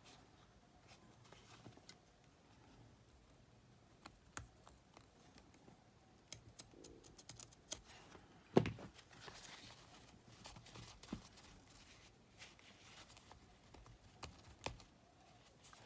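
Faint, scattered clicks and taps of small metal parts and hand tools being handled on a workbench, with a quick run of small clicks partway through and one louder knock soon after.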